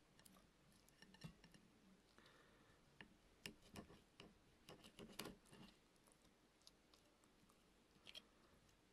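Faint clicks and soft crunches of a small knife cutting peeled orange segments and tapping the plate, thickest a few seconds in, with one more click near the end.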